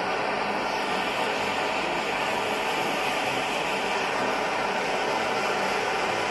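BULIN BL100-T4 multi-fuel stove burning pressurized kerosene, its burner giving a steady, even rushing hiss.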